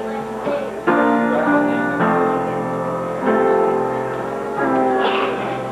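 Keyboard instrument playing slow wedding music in held chords, moving to a new chord about every second or so.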